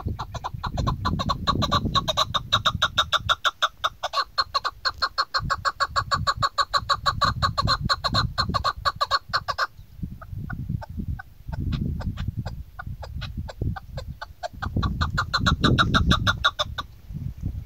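Caged female chukar partridge calling: a fast, even run of short chuck notes, several a second. The run breaks off about ten seconds in, then resumes more softly and grows loud again near the end.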